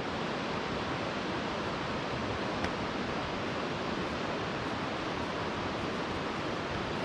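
A small mountain river rushing steadily: an even, unchanging wash of running-water noise.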